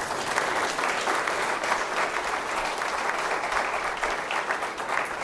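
Audience applauding at the close of a talk: many hands clapping together, starting abruptly and holding steady.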